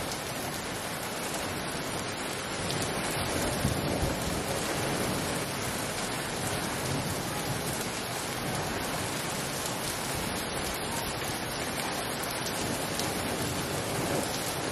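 Heavy thunderstorm downpour, rain coming down steadily in a dense hiss, with thunder rumbling low beneath it.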